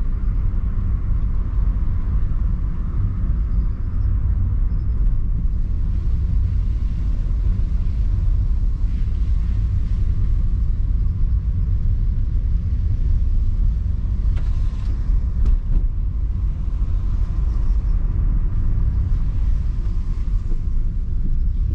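Steady low rumble of a Suzuki car driving along, its engine and tyre noise heard from inside the cabin.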